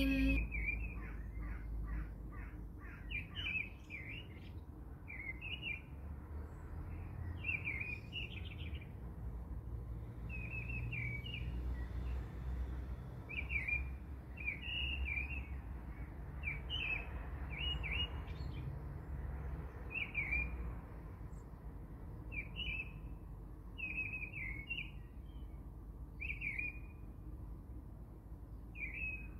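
Small birds chirping: short, high chirps in quick clusters, repeating every second or so, over a low steady rumble.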